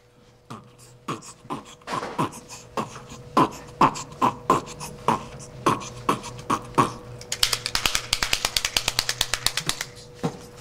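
A man beatboxing into cupped hands: a rhythmic beat of booming, falling-pitch thumps and sharp clicks, turning into a fast, even run of clicks about three-quarters of the way through.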